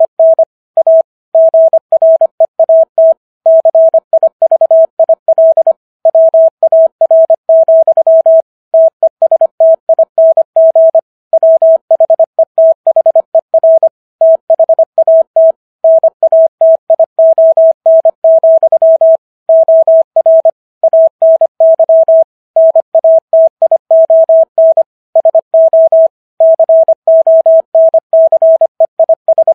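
Morse code sent at 25 words per minute: one clean steady tone keyed on and off in quick dots and dashes, with short gaps between letters and longer gaps between words. It spells out the text of the Gettysburg Address for copying practice.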